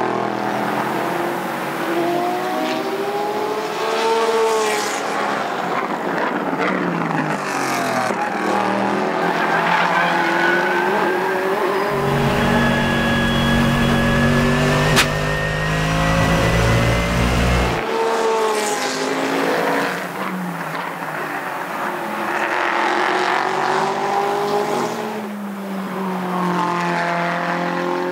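Race cars passing one after another at speed. Their engine notes rise and fall in pitch as each car goes by and shifts gear. For several seconds in the middle a deep, steady engine rumble comes in under them, and there is one sharp click partway through.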